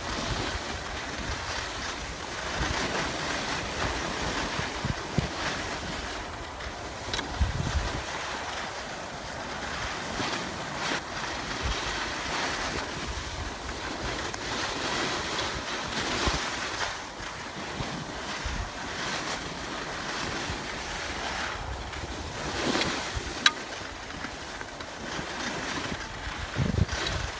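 Steady hiss of skis sliding over wet, rain-soaked snow, with wind buffeting the microphone in low gusts and an occasional sharp click.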